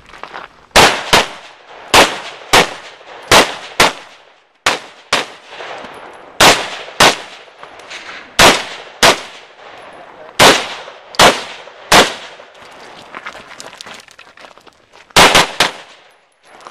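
Carbine fired in quick pairs, each pair about half a second apart, with gaps of a second or two between pairs; a fast string of three shots comes near the end.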